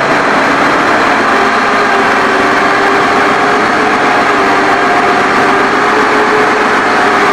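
Steady, loud drone of running machinery, engine-like, with a few faint held tones that waver slightly in pitch.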